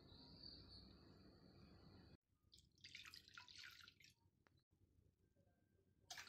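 Lukewarm water poured from a drinking glass into a glass bowl: a splashing pour lasting about a second and a half, starting about two and a half seconds in, and another short splash near the end. Before it, a faint steady background hiss.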